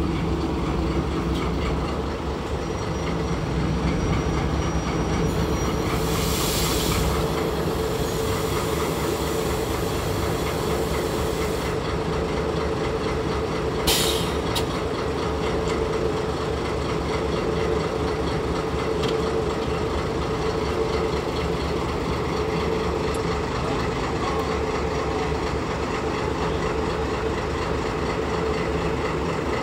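DD13-type diesel locomotive's engine running steadily with a deep hum. A burst of hissing comes in about six seconds in and lasts about six seconds, and there is a single sharp knock about halfway through.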